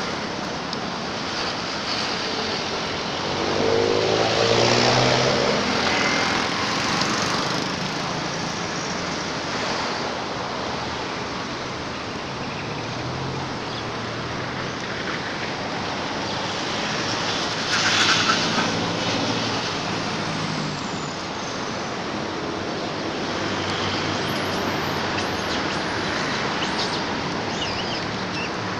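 Steady rush of road traffic, with a vehicle passing loudest about four to six seconds in and another brief loud swell around eighteen seconds.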